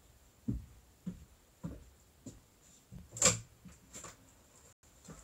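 A run of dull knocks and thumps, about one every half second, with one sharper clack about three seconds in.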